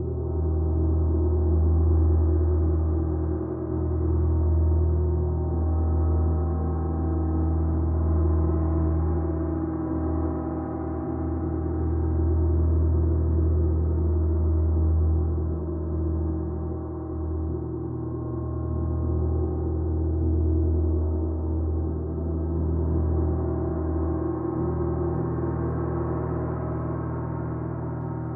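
Gong sounding in a continuous wash of deep, overlapping tones that swell and ease every few seconds, with no distinct single strikes.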